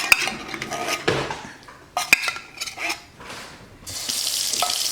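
A metal spoon clinking and scraping against metal cookware while thick condensed soup is scooped out, with sharp knocks at the start and about two seconds in, and a steady scraping near the end.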